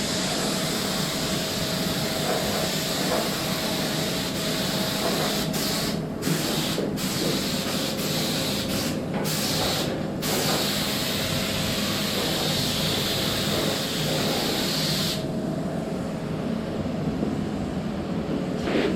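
Compressed-air spray gun hissing as it lays clear coat lacquer. The spray breaks off briefly a few times in the middle and stops about three-quarters of the way through. A steady low drone runs underneath.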